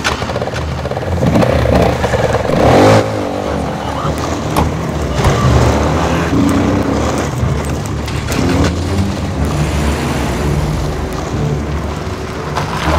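Motor vehicle engines running: a dirt bike's engine revving, with four-by-four engines running.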